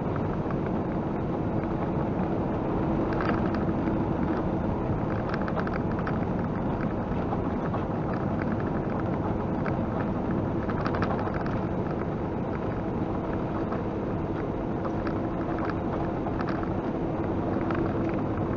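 Steady engine and road noise inside a semi-truck's cab at highway speed, with a steady hum running under it.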